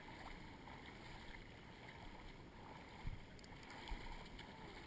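A dog wading through shallow swamp water, faint sloshing and splashing, with two short low thumps a little past the middle.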